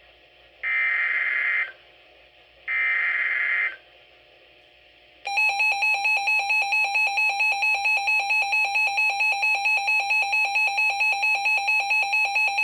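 Two one-second screeches of NOAA Weather Radio SAME digital header data, the code that opens a new severe thunderstorm warning. About five seconds in, an alert alarm starts: a buzzy electronic tone pulsing about four times a second.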